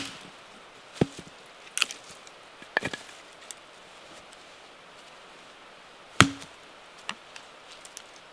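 A hatchet chopping into a short log stood on end to split firewood: a string of sharp wooden blows spaced a second or so apart. The hardest blow lands about six seconds in, and lighter knocks follow near the end.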